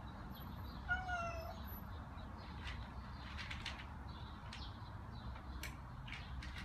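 A cat gives one short meow about a second in.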